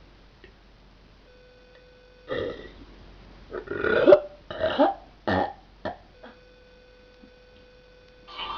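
A girl burping on command, with no soda: a run of about five short burps between two and six seconds in, the second the longest and loudest. These are small forced burps, which she herself calls ones that suck.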